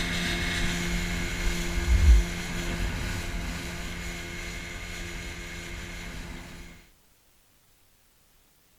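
Boat's outboard motor running steadily under way, slowly getting quieter, with a low thump about two seconds in; the sound cuts off abruptly near the end.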